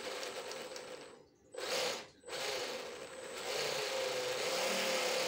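MN86KS RC crawler's brushed electric motor and gear drivetrain running with the wheels spinning freely off the ground, a steady whine with gear noise. About a second in it winds down to a stop, surges briefly, stops again just after two seconds, then picks back up and runs steadily.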